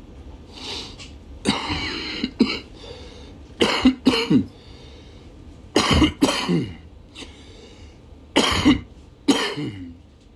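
A man's coughing fit: hard, harsh coughs in repeated bouts, several of them coming as double coughs, with some throat clearing.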